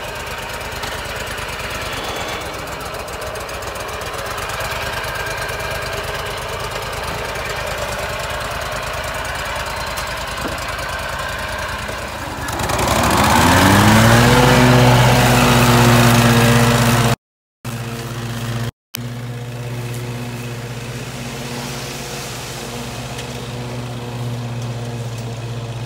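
Toro Grandstand stand-on mower's engine running at a low, steady speed, then revved up to a higher, louder steady speed about halfway through. After a short break it runs on steadily.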